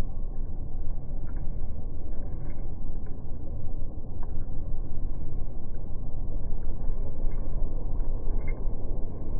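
Steady, low rumbling outdoor noise with no distinct events.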